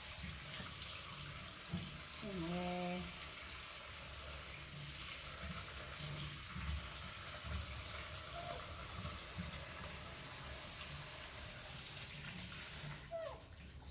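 Tap water running steadily into a stainless steel sink, splashing over grapes being rinsed by hand in a plastic colander; the flow stops near the end.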